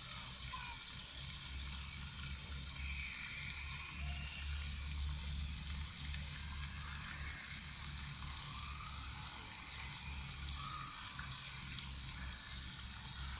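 Pond fountain jet splashing: a steady hiss of falling water, with a fluctuating low rumble underneath and a few faint chirps.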